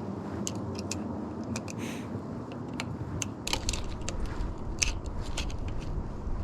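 Irregular small clicks, snaps and light rattles of bicycle cable housing, cables and hand tools being handled, over a steady low hum.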